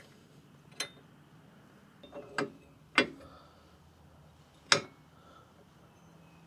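A few short, sharp clicks, about four spread over several seconds, with the loudest near the end: a motorcycle bolt and brake-arm parts being picked up and handled.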